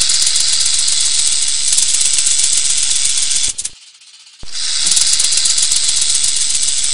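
Loud, continuous dry rattling hiss that cuts off abruptly a little past the middle, falls nearly silent for under a second, then resumes.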